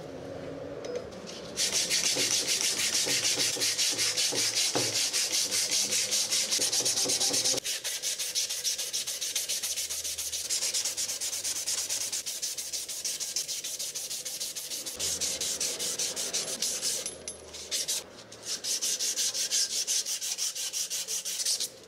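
Abrasive sanding strip drawn back and forth around a wooden shovel handle, shoeshine-style: a rapid, even rasping hiss of strokes, with a couple of short breaks near the end.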